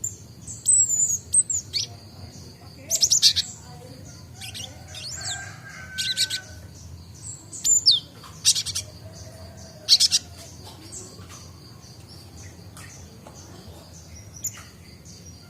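Cinereous tit chirping, with sharp, loud calls every couple of seconds over a steady high twittering that thins out in the last few seconds. It is a young bird still learning its song.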